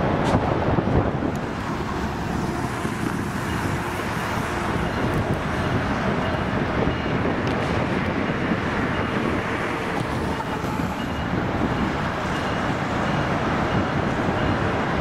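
Steady rumble of road traffic and wind on the microphone, with a distant NJ Transit ALP-45DP-led train approaching slowly.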